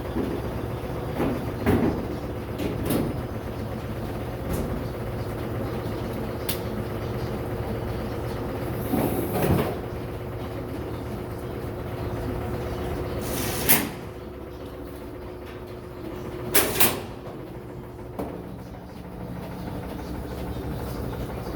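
Scattered metal clunks and knocks as dryer panels and parts are handled and fitted back in place during reassembly, a sharp double knock among them about two-thirds of the way in. A steady machine hum with a held tone runs underneath.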